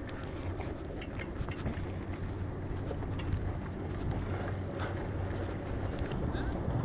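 Bicycle rolling along a rough, patched asphalt road: a steady low rolling noise with scattered light clicks and rattles.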